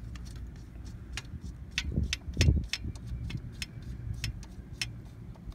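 Irregular small metallic clicks and taps as a motorcycle carburetor and its mounting hardware are handled and fitted onto the engine's intake, with a couple of heavier knocks about two seconds in over a steady low rumble.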